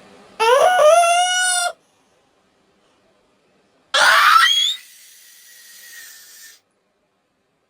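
A cartoon character sneezing. First comes a held, rising "aah" wind-up, then about two seconds later a sudden loud sneeze burst whose pitch sweeps upward and trails off over a couple of seconds.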